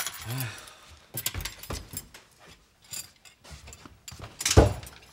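Ceramic bowls and chopsticks clinking and clattering as they are gathered from a table and carried off, in scattered short knocks, with a louder clatter of dishes near the end.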